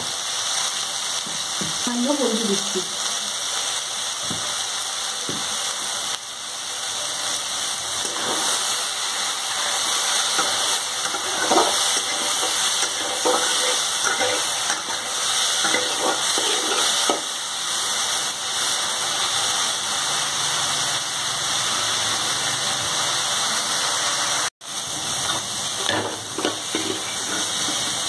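Boiled soya chunks sizzling as they fry in hot mustard oil in a metal kadai, with a spatula scraping and knocking against the pan as they are stirred and lifted out.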